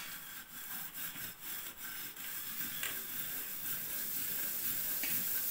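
Hand scouring the bottom of an upturned metal teapot kettle with coal-stove ash: a gritty rubbing in uneven strokes, scrubbing off stove soot.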